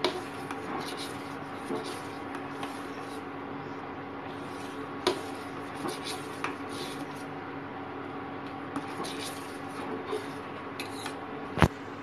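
Metal spoon scraping and clinking against a stainless steel pot while stirring thick rice kheer from the bottom, a few sharp clinks scattered through, the loudest near the end. A steady hum runs underneath.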